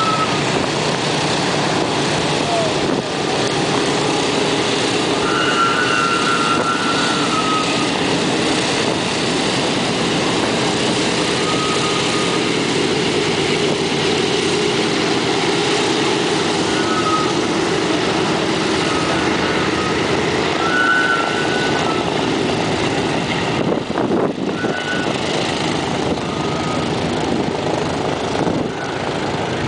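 Boeing B-17 Flying Fortress's four Wright R-1820 Cyclone radial engines running as the bomber taxis past and away, a loud, steady engine noise.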